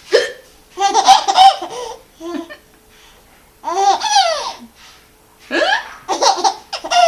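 A woman's hiccups, each followed by bursts of a baby's high-pitched laughter, three or four times over.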